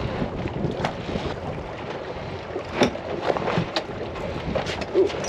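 Wind buffeting the microphone over water noise around a fishing boat on open water, with a few short knocks and clicks.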